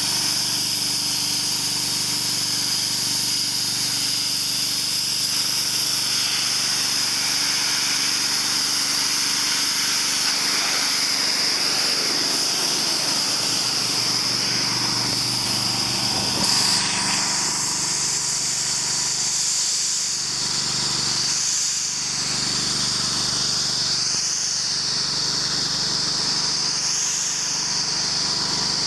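Pressure washer running steadily: the engine's even drone under the loud hiss of the high-pressure water spray. About halfway through, the hiss changes abruptly and then wavers up and down.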